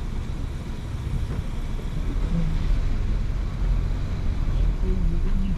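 Low, steady rumble of a car's engine and running gear heard from inside the cabin while rolling slowly, growing a little louder about two seconds in.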